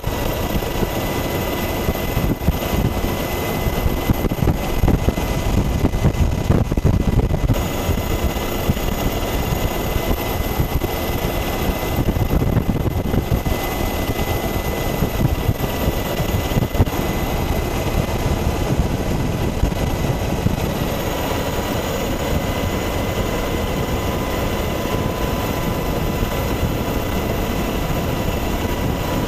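A formation of OH-58 Kiowa helicopters in flight: a dense, steady rotor chop with a thin steady whine above it.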